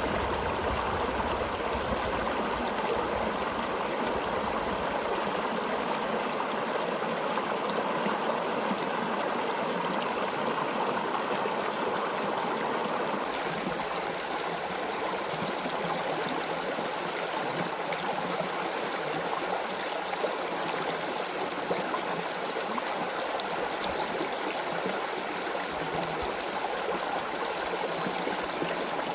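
Creek water flowing steadily over rocks, an even rushing with some trickling and gurgling.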